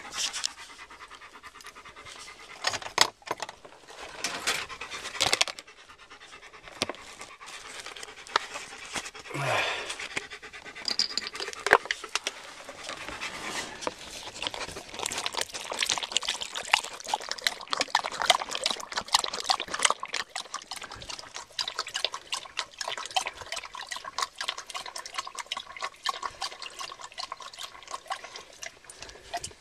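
Black German Shepherd panting with its mouth open close to the microphone, in quick, regular breaths that grow steadier and denser after the first several seconds.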